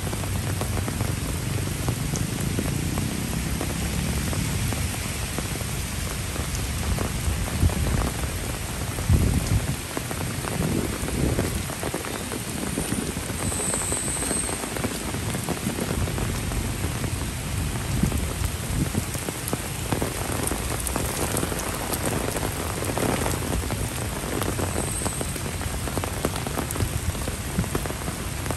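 Heavy rain falling on wet grass, paving and standing puddles: a steady hiss of rain all around. About nine seconds in there is one loud low bump on the microphone.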